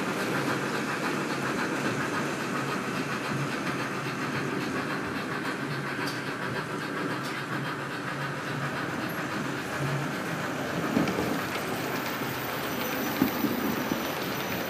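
HO scale Märklin model trains running on the layout's track: a steady rolling rumble of wheels and motors, with a few light clicks of wheels over the rails.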